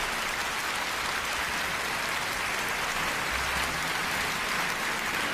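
Large concert hall audience applauding, a steady, even clapping.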